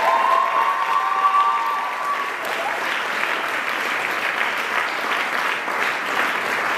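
Audience applauding steadily, a dense patter of many clapping hands. In the first two seconds a drawn-out high call rises over the clapping.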